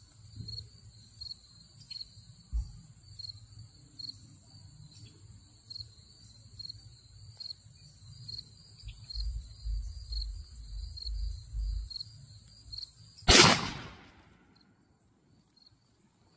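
A single shot from a Mossberg 500 pump-action .410 shotgun about thirteen seconds in, the loudest thing by far, with a short echoing tail. Before it, insects chirp steadily about twice a second, and the chirping stops at the shot.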